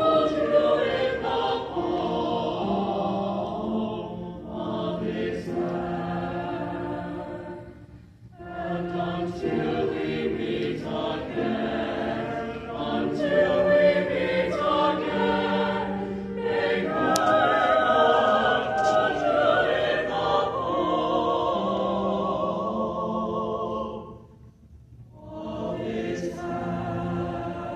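Mixed-voice choir singing in harmony, with long held chords and brief breaths between phrases about eight seconds in and again near the end.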